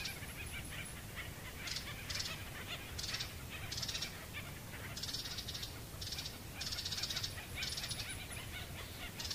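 Animal calls: short, high, buzzy calls repeating every half second to a second over a steady low rumble.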